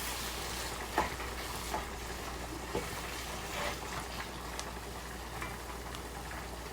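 Food sizzling steadily in a frying pan while it is stirred, with a few short clicks of the utensil against the pan.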